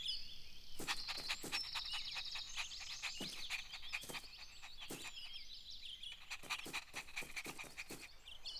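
Cartoon sound effects of a small dog scampering, a quick run of short sharp noises, over birds chirping.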